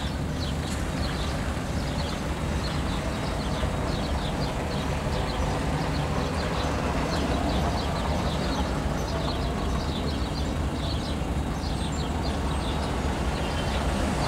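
Steady low rumble, with small birds chirping in many short, quick calls over it.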